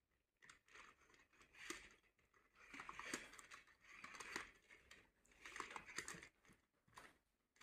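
Faint plastic sliding and clicking as coloured plastic discs are pushed along the slots of a toddler's colour-sorting slide puzzle to mix them, in several short bursts of scrapes and clicks.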